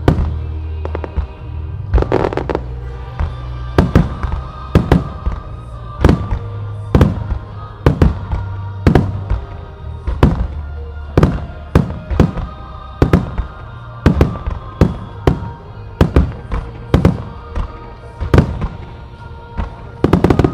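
Starmine firework shells bursting in quick succession, a sharp bang one or two times a second, over music that accompanies the display.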